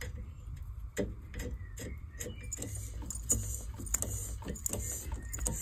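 Irregular small metallic clicks and ticks from a hand tap being turned into a blind hole in a bronze casting, the tap steadied by the lathe's chuck rather than driven under power. A low steady hum runs underneath, and a faint hiss joins about halfway through.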